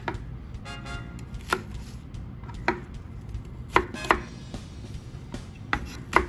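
Kitchen knife cutting through a green onion onto a wooden cutting board: separate cuts about a second apart, then a quicker run of cuts near the end.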